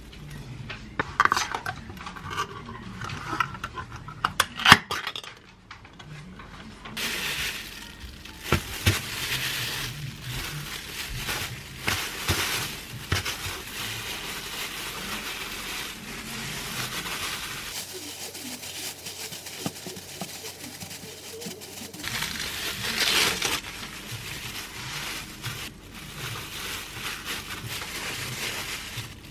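Kitchen handling sounds while making kimbap: sharp clicks and knocks of a tuna can and utensils in the first few seconds, then rustling of disposable plastic gloves and plastic-wrapped rice as aged kimchi and tuna are laid on a wooden cutting board.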